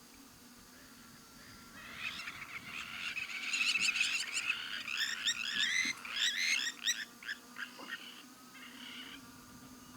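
A chorus of rapid, high-pitched chirping animal calls swells about two seconds in, then breaks into scattered chirps and fades after about seven seconds. A faint low hum runs underneath.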